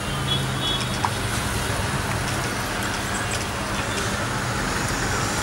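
Steady street background of traffic noise with a faint low hum and a few small clicks.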